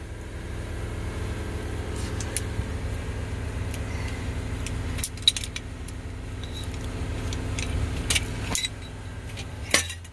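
Engine idling steadily, with sharp metallic clinks and clanks of metal parts or tools handled during a hydraulic hose and cylinder repair, a few times in the second half.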